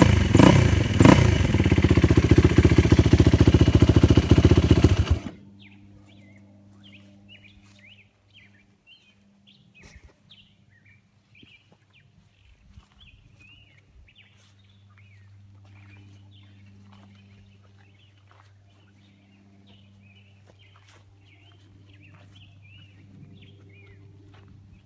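Yamaha YFZ450 quad's single-cylinder four-stroke engine running loud and close, then stopping abruptly about five seconds in. After that, small birds chirp over a faint low hum.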